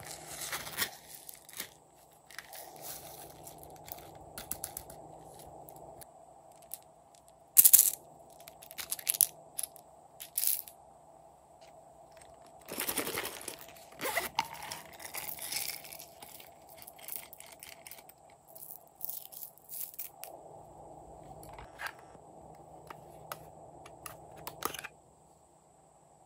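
Hands handling plastic and vinyl toys and containers: irregular crinkling, crackling and clicking, with a few sharper, louder crackles, over a faint steady hum.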